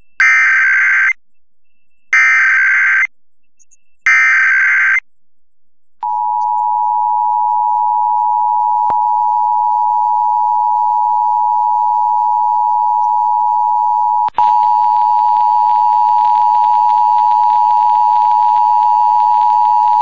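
Emergency Alert System tones as broadcast over FM radio. First come three short bursts of the warbling SAME data header, about a second apart. About six seconds in, the steady two-tone EAS attention signal starts; it breaks off for an instant about eight seconds later, then carries on with a faint hum underneath.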